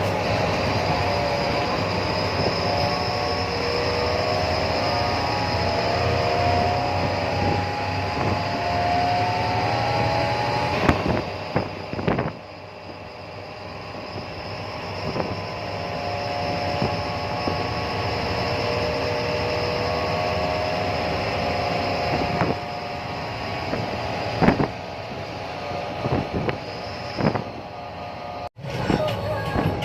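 A bus running on the road: steady engine and road noise, the engine's pitch drifting up and down. There are a few sharp knocks about a third of the way in and again later, and the sound cuts out briefly near the end.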